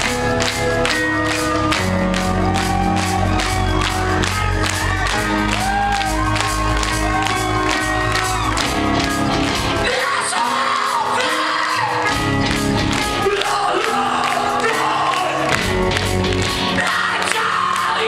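Live rock band playing a song with singing over a steady drum beat, recorded from within the audience. The bass and low end drop out for about two seconds around the middle.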